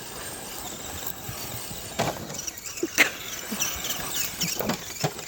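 Toy remote-control car's small electric motor whining as it is driven, in short high rising-and-falling spurts, with two sharp knocks about two and three seconds in.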